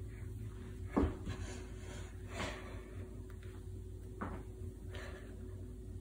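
Yeast dough being kneaded by hand on a kitchen counter: a few soft, irregular thumps and pushes, the loudest about a second in, over a faint steady hum.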